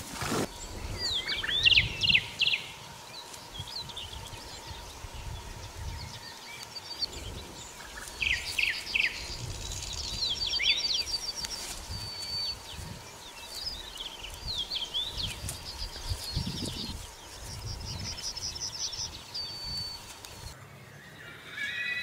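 Small birds singing in short chirps and rapid trills, over low rustling and soft thumps. A horse starts to whinny right at the end.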